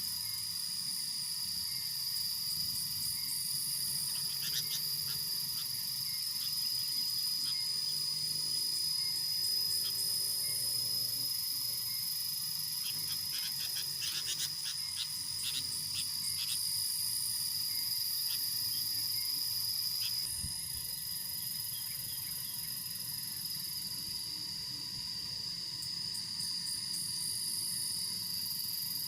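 Outdoor animal sounds: a steady high-pitched insect drone throughout, with frogs croaking and bursts of rapid chirping calls about four seconds in and again around the middle.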